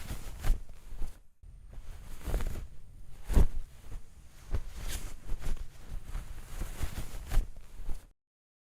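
Plastic toy pieces and packaging being handled: rustling with many sharp clicks and taps, cutting off suddenly near the end.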